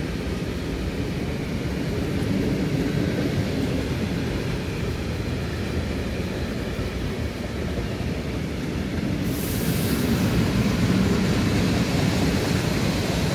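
Freight train of open-top gondola wagons rolling past: a steady rumble of wheels on the rails. A hiss joins suddenly about nine seconds in, and the sound grows a little louder.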